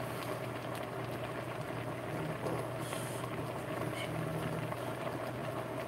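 Stockpot of seafood boil liquid at a rolling boil, bubbling steadily with scattered small pops over a steady low hum.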